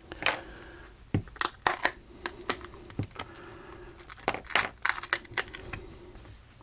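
Plastic pry tools clicking and scraping against a phone's frame and back cover, in a series of irregular short strokes.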